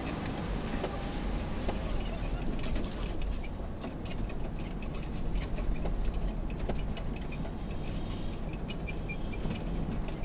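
Cabin sound of a GX460 SUV driving slowly over soft beach sand: a steady low rumble of the running vehicle, with frequent small, sharp, high-pitched ticks throughout.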